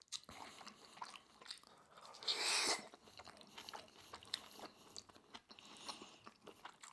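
Close-miked chewing of sukiyaki beef and rice: soft wet mouth clicks and smacks, with one short breathy rush of noise about two and a half seconds in.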